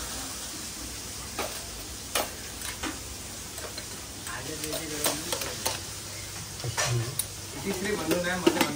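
Stainless-steel thali plates and small steel bowls clinking as a spoon ladles curry into them, in sharp clinks every second or so over a steady sizzle of frying.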